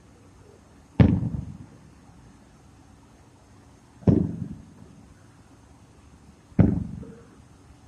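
Aerial firework shells bursting: three booms, about a second in, about four seconds in and near the end, each fading in a low rolling rumble.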